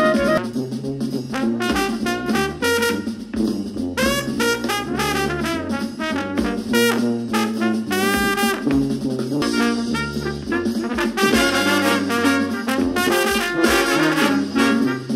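Background music: upbeat jazz with brass (trumpet and saxophone) over a steady beat.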